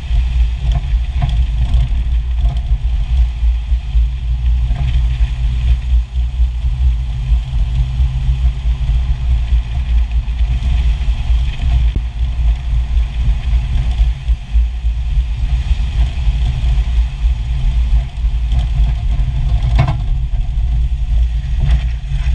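Jeep running, a steady low rumble with a few short knocks now and then: the clunking noise that is the complaint.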